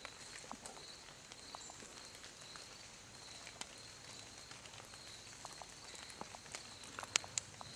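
Quiet woodland: scattered light rustles and crunches of whitetail deer moving through dry leaf litter, over a steady high pulsing drone. A couple of sharper clicks come near the end.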